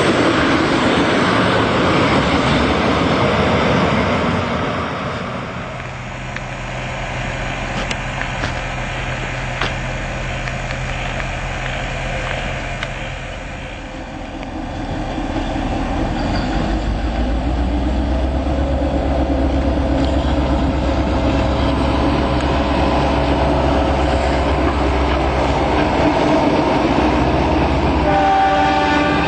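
Passenger train cars rushing past at speed, the noise fading as the train draws away. Later a locomotive hauling a freight train approaches with a low rumble that grows steadily, and it sounds a multi-tone horn near the end as it passes close by.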